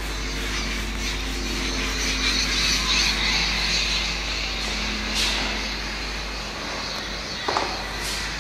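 Felt whiteboard duster rubbing back and forth across a whiteboard, wiping off writing, over a steady electrical hum. It fades after a few seconds, and two brief knocks follow later.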